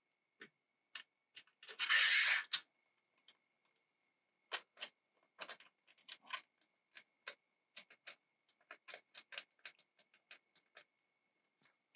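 Light, irregular clicks of bolts being set by hand into an aluminium greenhouse frame, with a brief scrape about two seconds in.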